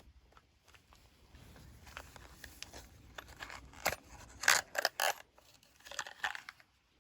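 Hand-tool work in the engine bay: scattered clicks and scrapes with a cluster of sharp metallic knocks about four to five seconds in.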